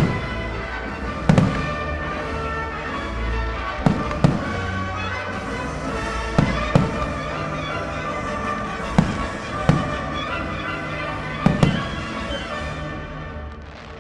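Fireworks shells bursting in sharp bangs, about ten of them, several in quick pairs, over a musical soundtrack played for the show; the music fades near the end.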